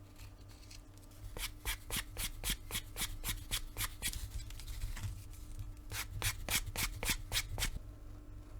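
Quick back-and-forth rubbing strokes on leather by hand, about four a second, in two runs with a pause of about two seconds between them.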